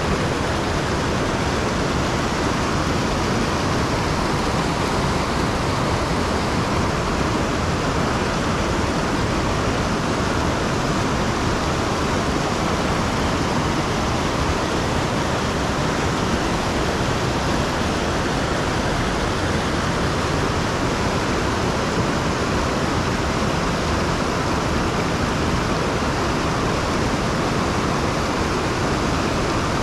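Fast-running stream rushing steadily, a loud, even noise of running water.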